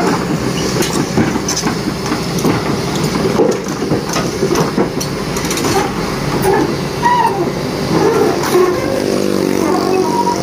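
Kobelco hydraulic excavator's diesel engine running under load as it climbs its steel crawler tracks onto a self-loader truck's tilted steel bed, with repeated metallic knocks and clanks from the tracks on the deck. A steady humming tone comes in near the end.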